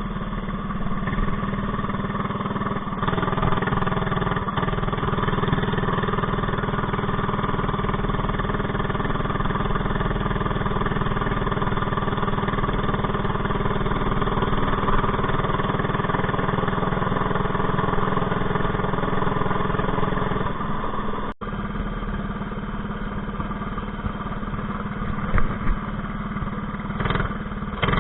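Predator 212 single-cylinder engine on a Mega Moto minibike running at a steady speed, its governor bypassed with a zip tie on the governor spring. There is a momentary break in the sound about 21 seconds in, after which it carries on slightly quieter.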